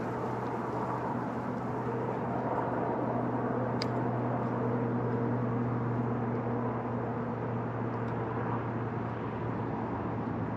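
A steady low mechanical drone, like an engine running at a distance, with a few faint steady tones over it that are strongest through the middle. A single sharp click sounds about four seconds in.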